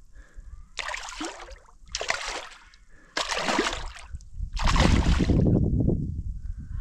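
Water splashing in four separate bursts, each lasting under a second, about a second apart, the last one the loudest and longest.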